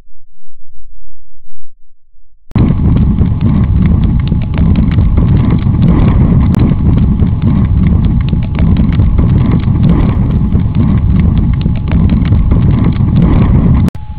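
Trail camera's own microphone battered by mountain wind: a loud, rough, fluttering rushing noise that starts abruptly about two and a half seconds in, after a faint low rumble, with a steady thin tone running through it. It cuts off sharply near the end.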